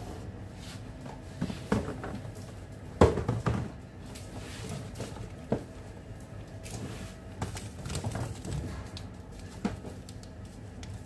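Scattered light knocks and taps of small foil-wrapped chocolates being picked up from a stainless steel worktop and set on a metal tray, the sharpest about 3 s in, over a faint steady hum.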